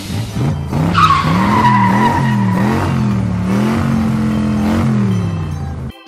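Cartoon truck engine sound effect, revving up and down repeatedly as the truck drives off, with a tyre squeal that starts about a second in, falls in pitch and then holds. It cuts off sharply at the end.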